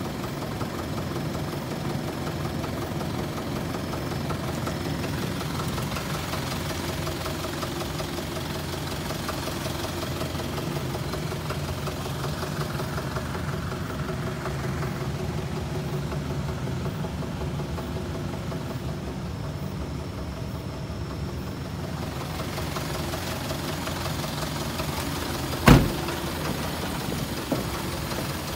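Isuzu Elf truck's four-cylinder 4HL1 diesel engine idling steadily with a diesel clatter. A single sharp knock near the end, the loudest sound, followed by a fainter one.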